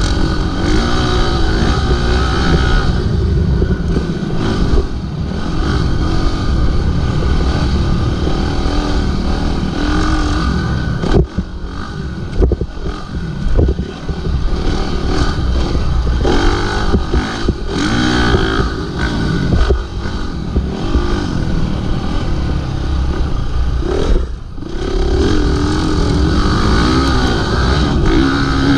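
Dirt bike engine revving hard on a motocross track, pitch rising and falling as the throttle is worked, with the throttle chopped briefly twice, about eleven seconds in and again near the end.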